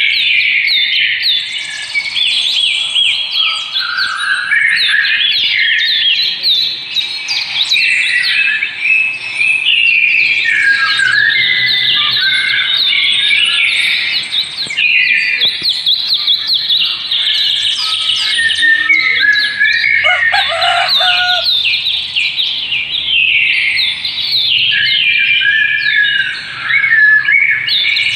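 Many small birds chirping and twittering at once in a dense, continuous chatter, with a brief lower call about two thirds of the way through.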